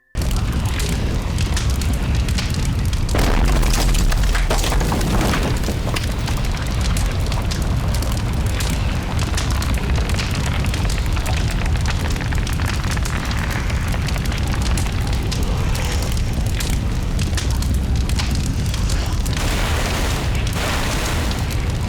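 Volcanic eruption sound effect: a loud, continuous rumble with dense crackling. It starts abruptly and holds steady throughout.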